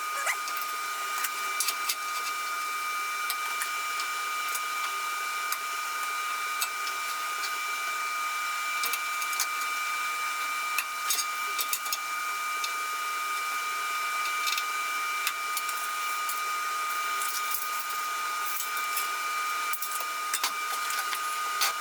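MIG welding arc on steel grate bars: a continuous sizzling hiss with scattered crackles, running steadily and stopping abruptly just after the end.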